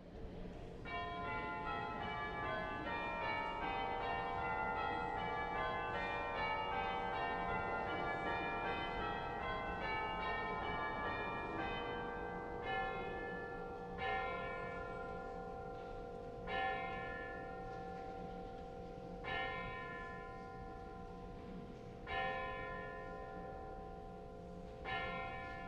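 Church bells ringing: a quick run of many overlapping bell strikes for about twelve seconds, then single slow strikes about every three seconds, each left to ring out.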